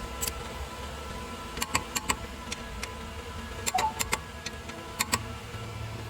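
Irregular sharp clicks and clinks of hand tools and metal parts being handled during brake repair work, over a low steady hum.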